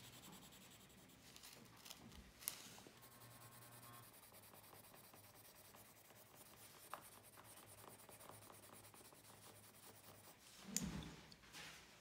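Faint scratching of a Faber-Castell Polychromos coloured pencil worked lightly over paper in cross-hatching strokes, with a brief louder rustle near the end.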